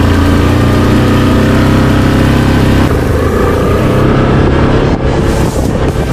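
Yamaha Grizzly 700 ATV's single-cylinder engine running at steady throttle, turning rougher and more uneven about three seconds in.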